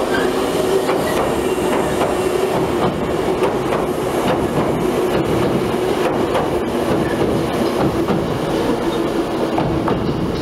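Hankyu 6000 series three-car electric train running over a steel girder bridge, the wheels clattering over the rails with many short clicks over a steady hum.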